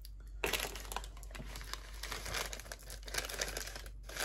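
Paper packaging crinkling and rustling as items are handled and pulled out of a box. It starts about half a second in and breaks off briefly near the end.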